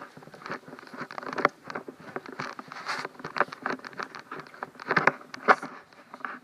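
Irregular rustling, scraping and clicks as a handheld phone is moved about: handling noise on the phone's microphone.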